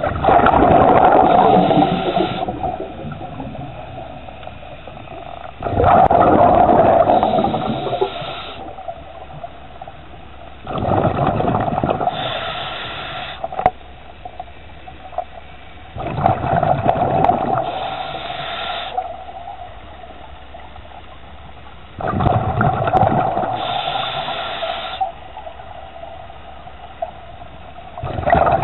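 Scuba diver breathing underwater through a regulator: exhaled air bubbles rush and gurgle out in bursts of two to three seconds, repeating about every five to six seconds.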